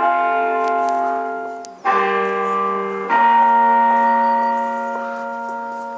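Church bells ringing, several tones sounding together, with fresh strikes about two and three seconds in and the ringing slowly dying away after.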